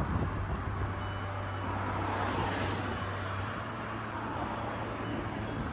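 Road traffic noise, cars driving on a busy road, heard from a road bike riding along its edge, with a steady low hum underneath.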